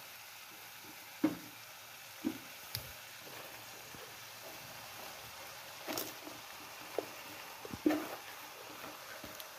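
Vegetables sizzling faintly in a frying pan as shredded cabbage is stirred in with a spatula, with a few sharp clicks of the spatula knocking against the pan.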